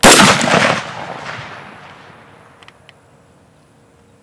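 A single shot from a DRD Tactical M762 semi-automatic takedown rifle, a sharp loud crack whose report rolls away and fades over about two seconds.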